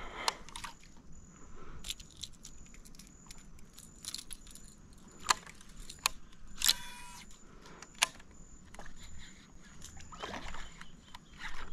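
Scattered sharp clicks and light metallic rattles, with a short rasp about seven seconds in, over a faint steady high tone.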